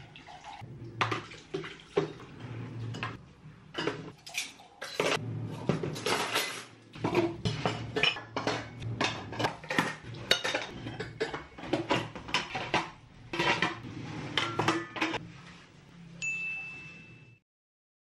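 Hand dishwashing at a stainless steel sink: ceramic mugs, plates and plastic ware clink and knock against each other and the basin, with water splashing, in quick irregular clatter. Near the end the clatter stops, a short steady high tone sounds, and the sound cuts out.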